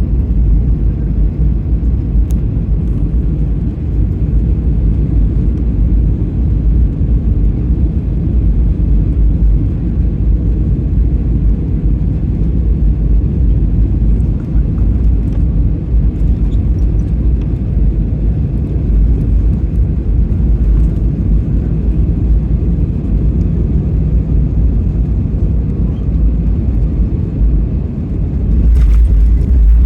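Airliner cabin noise heard from a window seat: a steady, loud low rumble of engines and airflow during a gusty approach. Near the end there is a brief knock, and the rumble then steps up louder.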